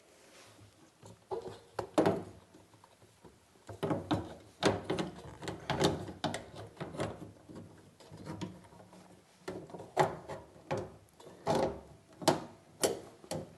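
Irregular clicks, knocks and scrapes as a replacement door hinge is fed through the hinge opening in a washer dryer's front panel. There is a busy cluster of handling knocks in the middle and a few sharper clicks near the end.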